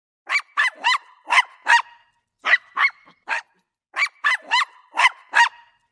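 Small dog yapping: about a dozen short, high barks in three quick runs of five, three and five.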